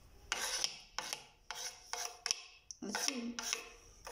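Kitchen knife blade scraped repeatedly across a wooden cutting board, sweeping chopped vegetables off into a pot; a quick run of short scraping strokes.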